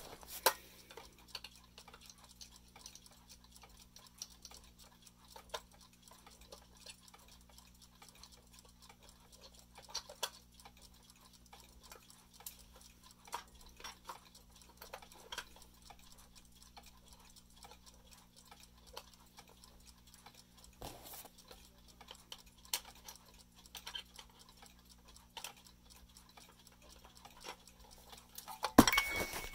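Scattered, irregular clicks and knocks of the back cover being handled and fitted onto a Nairi music-box alarm clock, with a louder clatter near the end, over a faint steady low hum.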